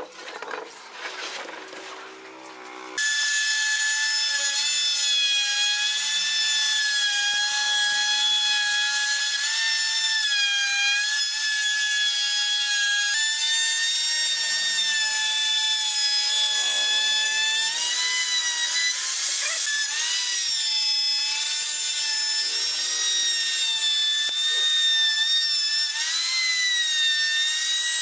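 Dongcheng electric plunge router running at high speed, a steady high whine that wavers slightly as the bit cuts along the edge of a pine door frame. It starts about three seconds in, after a few light knocks of wood being set down.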